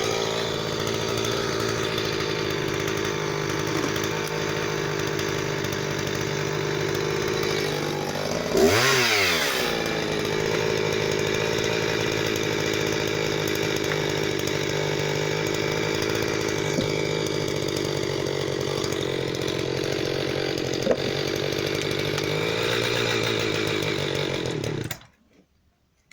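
Husqvarna 359 two-stroke chainsaw running at high revs while cutting firewood. Its pitch dips and climbs back once about nine seconds in. The sound stops abruptly near the end.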